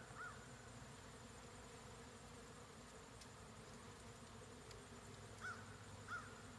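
Honey bees buzzing steadily and faintly around an open sugar-water feeder, the frenzied activity of robbing bees fighting over the feed. A bird gives a short chirp near the start and two more near the end.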